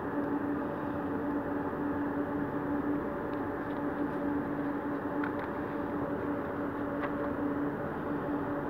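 Steady low machine hum carrying one constant tone, with a few faint ticks near the middle.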